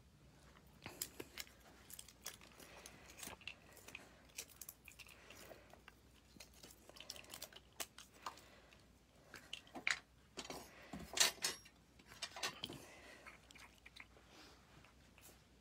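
Small objects being handled and tidied up: irregular clicks, taps and crinkling, with the loudest cluster about eleven seconds in.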